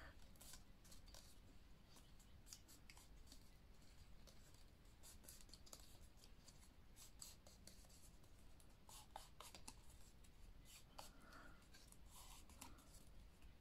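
Near silence, with faint scattered clicks and rustles of thin card being handled as small glued paper tabs are folded and pressed together by hand.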